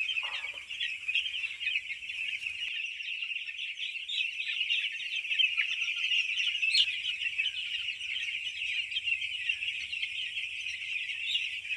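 A large flock of five-day-old chicks peeping continuously, many short high cheeps overlapping into a steady chorus.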